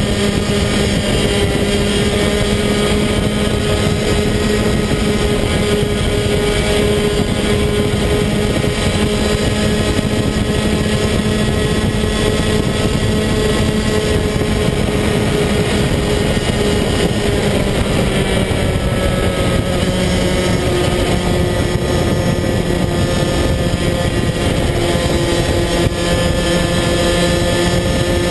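Rotax DD2 125cc two-stroke kart engine running at racing speed, heard loud from onboard. Its note holds fairly steady, then climbs in pitch over the last third.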